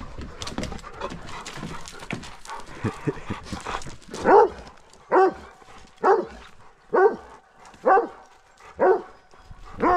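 A dog barking over and over, about one bark a second, starting about four seconds in; before that, scattered light clicks and scuffling.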